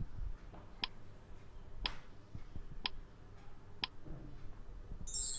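Countdown-timer tick sound effect: four sharp clock-like ticks, one a second, as the on-screen timer counts down. A bright chime sound effect starts near the end, marking time up.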